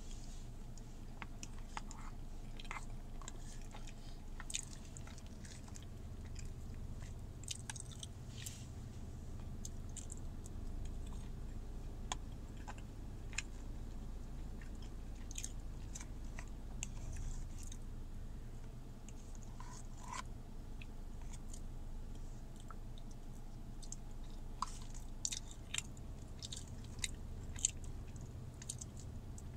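A person chewing a mouthful of food with her mouth closed. Soft wet mouth clicks and smacks come irregularly, with a few louder ones near the end, over a steady low hum.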